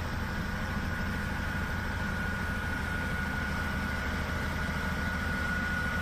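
XCMG XS203J single-drum road roller's diesel engine running steadily, with a thin steady whine above the low engine hum.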